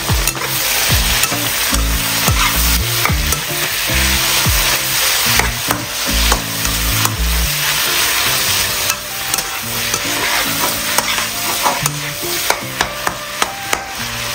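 Beef slices and minced garlic sizzling in a hot nonstick wok while being stirred and flipped with a metal spatula. The spatula scrapes and clicks against the pan, with a quick run of clicks near the end.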